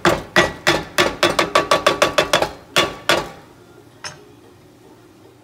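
Wooden spatula knocking quickly against a Copper Chef square pan while mixing dry-cooked potatoes, about twenty sharp knocks that speed up in the middle and stop about three seconds in, then one more knock about a second later.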